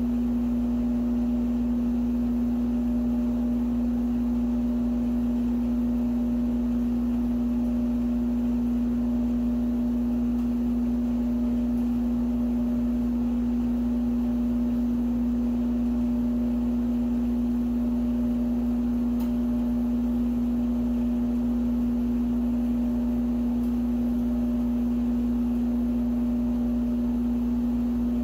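A steady, unchanging hum with one strong low tone and fainter higher tones above it, over a low rumble.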